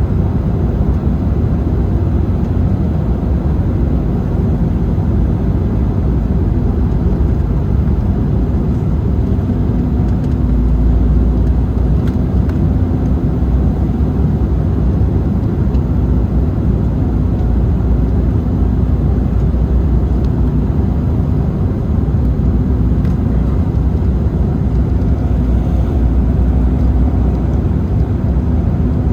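Steady in-flight cabin rumble of an Embraer 190 jet airliner: engine and airflow noise, with a faint steady hum joining about a third of the way in.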